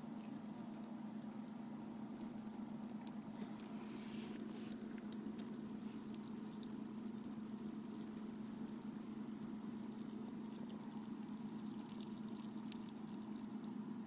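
A thin stream of ice-cold tap water trickling onto a mound of ice that it is freezing into in the sink, with many small irregular splashes and ticks over a steady low hum.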